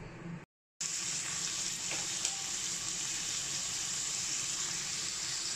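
Chopped onion, curry leaves and dried red chillies sizzling steadily in hot oil in a kadai: the tempering (thalippu) for sambar. The sound cuts out briefly about half a second in before the sizzle starts.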